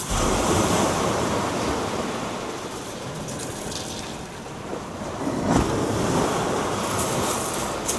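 Surf breaking and washing up a shingle beach, swelling twice, with wind buffeting the microphone.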